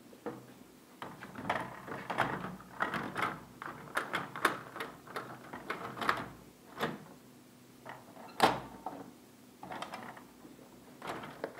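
Irregular plastic clicks, scrapes and knocks of a laser printer toner cartridge being handled and slid in and out of an HP laser printer's cartridge bay, with one sharp knock a little past the middle. A faint steady hum runs underneath.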